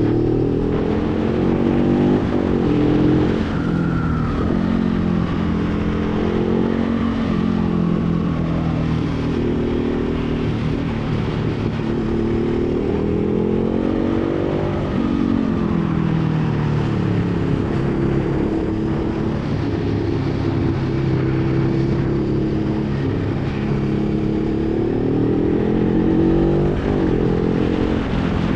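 Motorcycle engine running under way, its revs climbing and dropping repeatedly as the rider accelerates, shifts and eases off, with a rising sweep about halfway through and another near the end, over a steady rush of wind and road noise.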